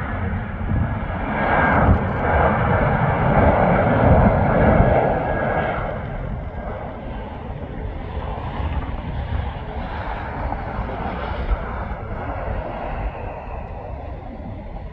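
Jet airliner passing close by as it comes in to land. Its noise swells to a peak about four seconds in, then fades to a lower steady rumble.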